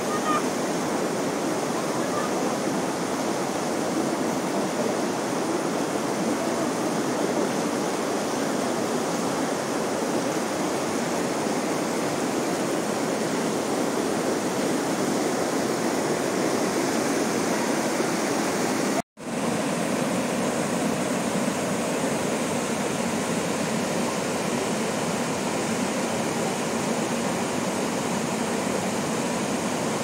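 River water rushing over boulders and white-water rapids, a steady, unbroken rush. It cuts out to silence for a split second about nineteen seconds in, then carries on the same.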